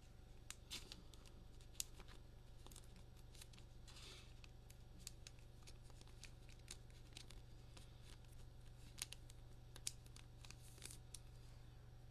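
Faint clicks and rustles of baseball cards being handled and flipped through one at a time, over a steady low hum.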